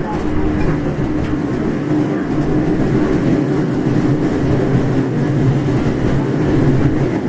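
Running noise heard inside a JR 415-series 1500-subseries electric multiple unit under way: a steady rumble of wheels on rail and motors. A humming tone fades after the first second or so, and a lower hum comes up in the later part.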